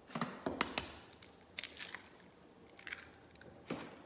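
Eggs cracked against the rim of a small bowl: a few sharp taps and shell cracks in the first second, then a few more scattered cracks and small clicks as the shells are pulled apart.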